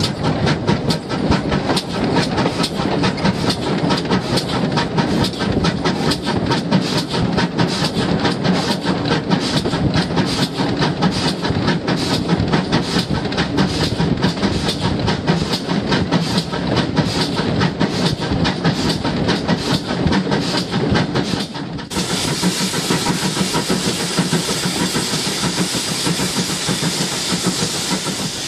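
GWR steam locomotive at work, heard from on board: a fast, even beat of about four strokes a second over the running and rail noise. About three-quarters of the way through, the beat stops suddenly and gives way to a steady rushing hiss.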